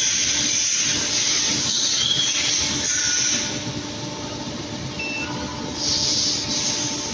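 Screw air compressor running: a steady mechanical hum under a loud, constant hiss of air.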